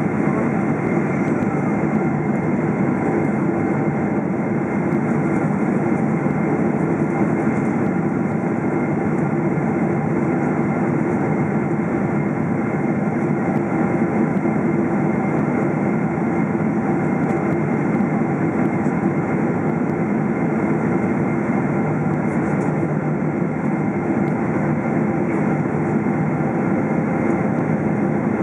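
Steady in-cabin noise of a Boeing 777-300ER on approach to landing: the rush of airflow and the low drone of its GE90 engines, with a few faint steady tones over it.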